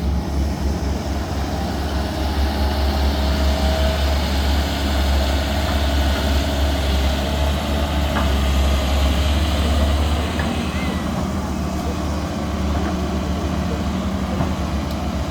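Diesel engine of a CAT hydraulic excavator running steadily with a deep drone, easing off a little about two-thirds of the way through.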